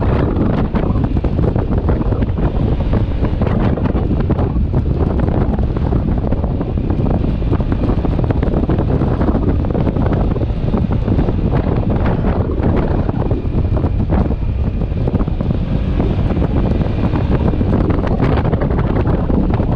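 Wind rushing loudly and steadily over the microphone of a motorcycle riding along at road speed, with the bike's engine running underneath.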